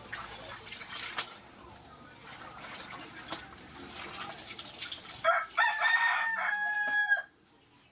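Splashing and dripping of wet clothes being hand-washed and wrung over a basin of water, then a rooster's long crow of about two seconds, the loudest sound, which cuts off suddenly.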